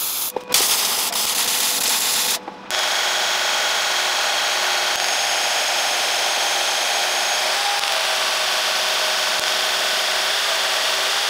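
Welding crackle in two short runs over the first couple of seconds. Then a bench belt sander runs steadily while an aluminum block is ground against the belt.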